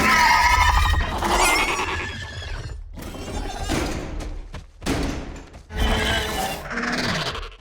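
Baryonyx sound effects: a loud, wavering, shrieking roar at the start, followed by several shorter growls and calls.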